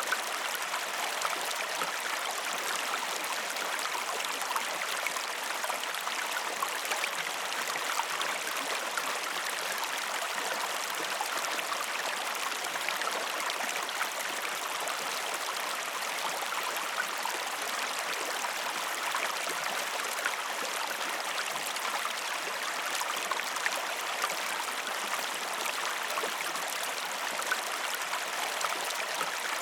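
River water flowing steadily over stones, an even rushing with many small splashes and gurgles through it.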